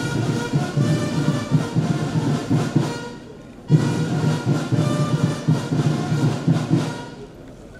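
Ceremonial band music played in two phrases of about three seconds each, with a short break between them.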